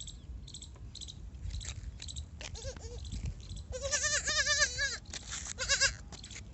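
Goat bleating: a short bleat about two and a half seconds in, a long wavering bleat of about a second around four seconds in, and another short one near six seconds. Short high chirps repeat throughout.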